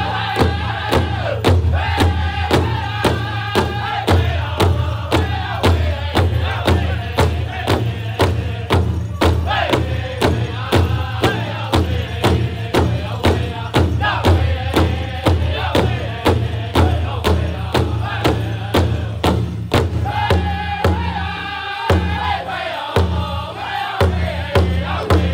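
Powwow drum group singing a chorus in high-pitched voices while several drummers strike one large hide drum in unison with padded sticks, keeping a fast, steady beat.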